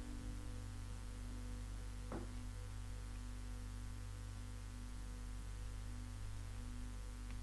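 Steady low electrical mains hum, with one faint click about two seconds in.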